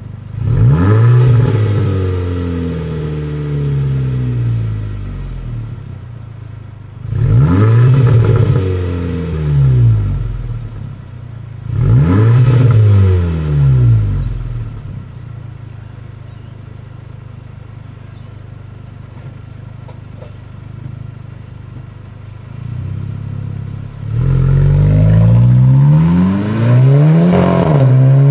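Volkswagen Scirocco engine idling at standstill and blipped through its exhaust, each rev rising and falling in pitch: one near the start, then two pairs of quick blips with idle between, and a longer spell of revving near the end.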